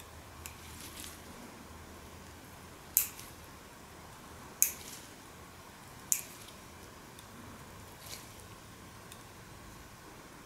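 Four sharp snips of a nail cutter biting through a thick, fungus-infected toenail, about one and a half to two seconds apart, the first two the loudest, over a faint steady hum.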